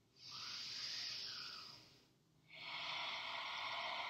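A woman breathing slowly and audibly: two long breaths of about two seconds each, with a short pause between.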